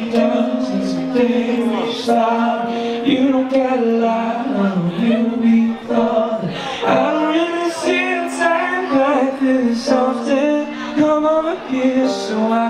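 Live band playing: a male lead vocal sung over keyboard chords, electric guitar, bass and drums.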